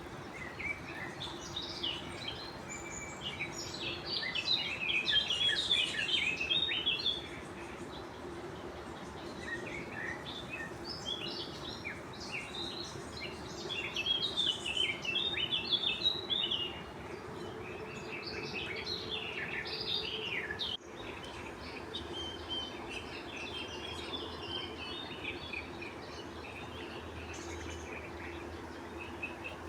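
Songbirds singing: runs of rapid chirps and twitters, loudest in two stretches in the first half and fainter later, over a faint steady hum.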